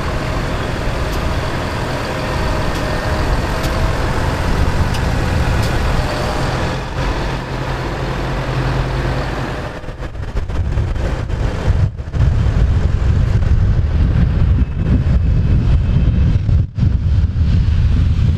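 A column of farm tractors driving past, their diesel engines running steadily. About ten seconds in, the sound becomes louder and deeper as a tractor passes close.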